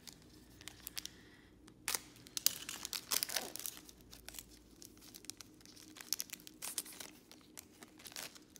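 Foil wrapper of a Panini Select trading-card pack being torn open and crinkled by hand. A run of sharp crackles and rips starts about two seconds in and is loudest around three seconds, then lighter crinkles follow until near the end.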